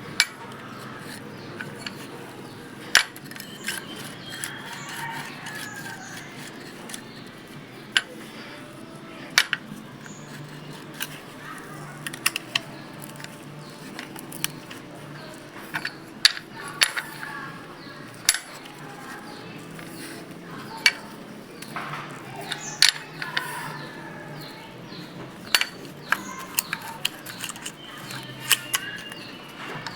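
Metal hand tools clicking and clinking at irregular intervals against the valve gear of a Ford 5000 tractor engine as the valve clearances are adjusted with wrenches and feeler gauges.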